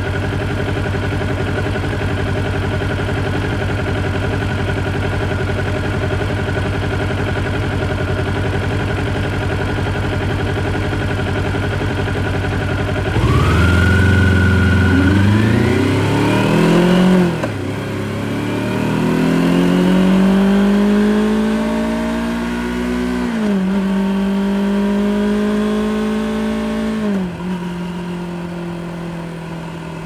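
Kawasaki Ninja 400's parallel-twin engine on its stock exhaust, idling steadily, then pulling away about 13 seconds in. The revs climb and drop back at three upshifts before settling to a steady cruise near the end.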